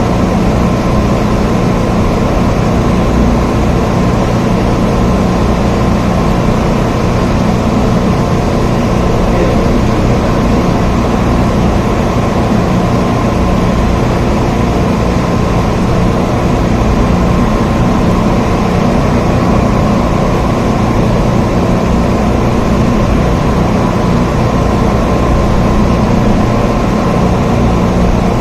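Steady, heavy rain noise with a deep, constant rumble underneath, unchanging throughout.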